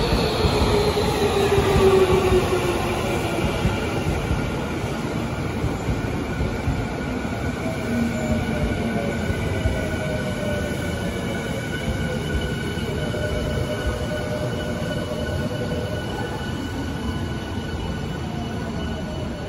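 Tokyu Den-en-toshi Line electric commuter train pulling into the platform and braking. The motor whine falls in pitch over the first few seconds, over a steady wheel-and-rail rumble, with thin steady high tones as the train slows.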